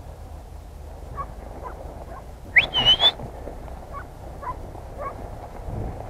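A single short, high whistle about halfway through, sliding up in pitch and then holding briefly, over a steady low wind rumble and faint scattered rustles.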